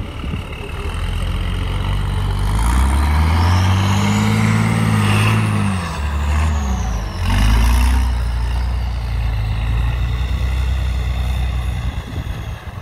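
Trial truck's engine revving hard under load as it climbs a muddy bank. It builds to a peak a few seconds in, eases off, then revs again briefly, with a high whine rising and falling along with the first rev.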